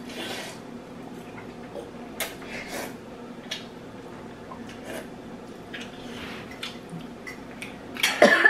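People slurping spicy ramen noodles with forks from bowls: a series of short, sharp sucking slurps. Near the end comes a loud choking gasp as a slurped mouthful goes straight down the throat.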